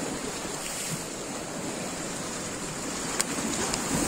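Sea waves washing against a rocky shore, a steady rush of surf. A single sharp click about three seconds in.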